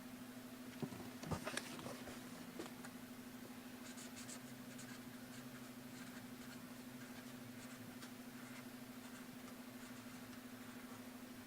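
A few light knocks and clicks about a second in, then faint scratchy rustling, over a steady low electrical hum.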